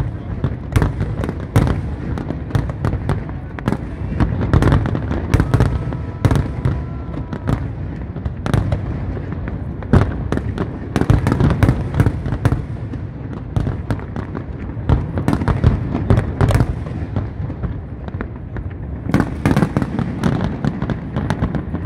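Aerial fireworks display: rapid, overlapping bangs of exploding shells over a continuous low rumble, with no pause.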